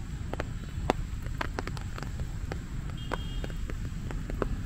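Raindrops tapping irregularly on an umbrella overhead, a few sharp drops a second, over a steady low rumble.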